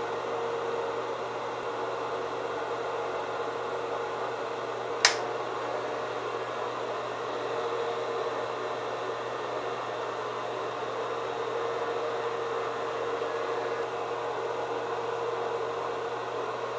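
Electric T-blade hair trimmer running with a steady buzzing hum, with a single sharp click about five seconds in.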